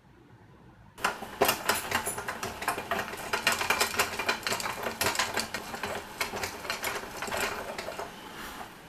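The screw-driven fork lift of a 1970s Tonka pressed-steel toy forklift being cranked, the fork carriage clattering down the threaded rod in a fast run of metal clicks and rattles. It starts about a second in and dies away near the end.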